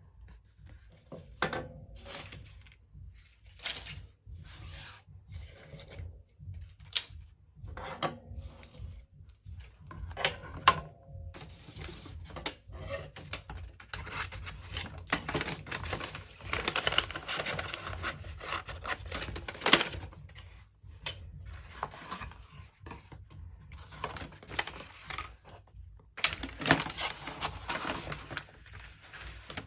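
Cardboard and paper being handled and rubbed on a work surface: scattered taps and clicks, with longer stretches of scratchy rubbing in the middle and again near the end.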